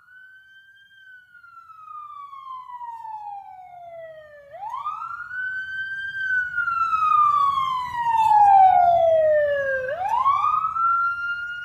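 Police car siren wailing, each cycle a quick rise and a slow fall, run through a Doppler shifter so it approaches from far off. It grows from faint to its loudest about eight seconds in, with a low rumble coming in underneath, then eases off slightly.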